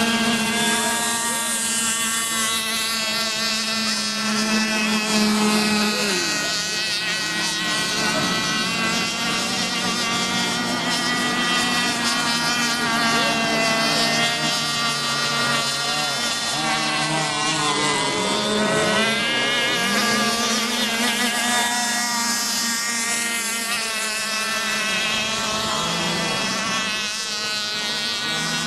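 Small engines of radio-controlled racing boats running at full throttle, several at once, a steady high-pitched whine. The pitch slides down as boats pass, once early on and again past the middle.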